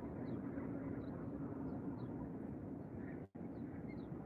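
Steady low outdoor rumble with faint, short high chirps scattered through it. The sound drops out for an instant about three seconds in.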